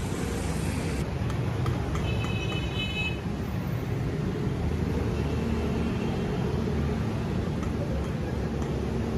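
Busy street ambience: a steady rumble of road traffic, with a brief high-pitched tone about two seconds in.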